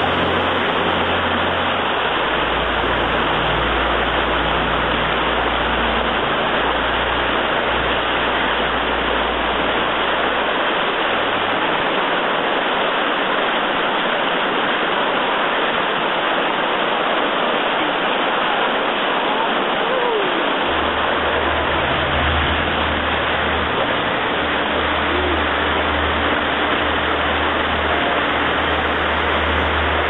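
Steady rushing of river whitewater, with a low rumble that fades out about ten seconds in and comes back about twenty seconds in.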